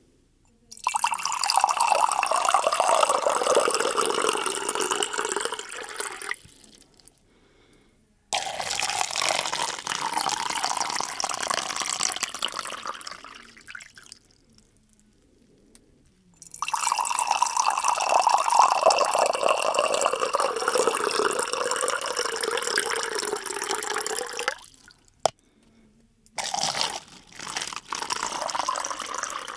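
Water running and splashing in four separate pours of several seconds each, with short silent gaps between them. A single sharp click sounds just before the last pour.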